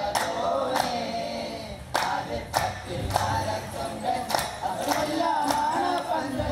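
Vattappattu troupe of men singing together as a chorus, with sharp hand claps on a steady beat a little under two a second.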